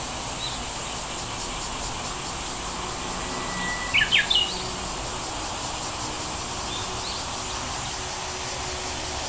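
Songbirds calling over a steady outdoor background hiss, with scattered short chirps. About four seconds in, one bird gives a brief held whistle followed by three quick, loud sweeping notes.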